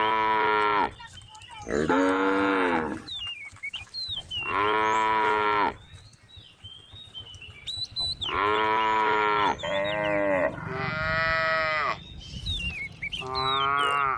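A cow mooing over and over: about seven calls of roughly a second each with short pauses between them.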